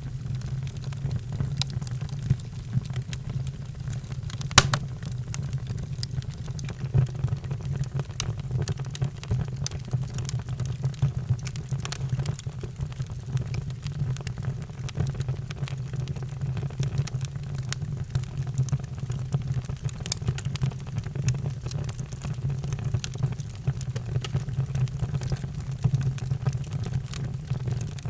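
Wood fire crackling in a fireplace: frequent small pops and snaps over a steady low rumble, with one louder pop about four and a half seconds in.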